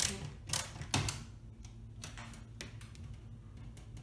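Hand screwdriver with a Torx bit clicking and tapping against a screw in the oven's metal mounting frame: three sharp clicks in the first second, then lighter irregular ticks.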